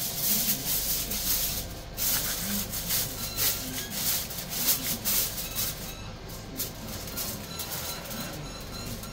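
Aluminium foil crinkling and rustling as a sheet is laid over a baking dish and pressed and crimped around its edges: irregular crackling that is densest in the first couple of seconds and thins out later.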